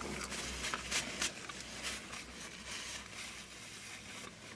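Quiet eating sounds: soft mouth clicks and lip smacks while eating with the fingers, with faint crackle of paper food wrappers, a few short clicks in the first second or so. A faint low rumble fades out about halfway through.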